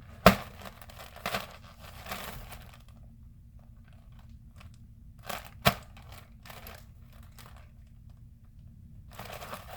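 Packaging being handled while an item is taken out of a box: scattered rustles and crinkles with a couple of sharp knocks, and quieter pauses between.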